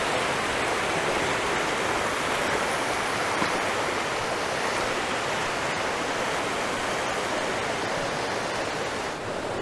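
Mountain river rushing steadily through a narrow gorge: the Radovna's water running as an even, continuous wash.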